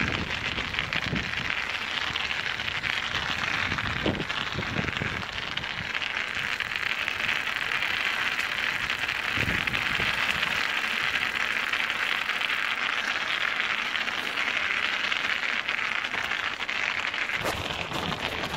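Studded bicycle tyres rolling over ice: a steady gritty hiss of the metal studs on the icy surface, with a few low bumps from the trail.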